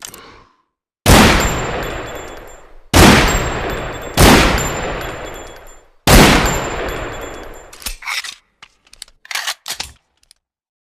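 Desert Eagle pistol firing four single shots one to two seconds apart, each shot ringing out in a long echoing decay. Several short metallic clicks and clanks follow near the end.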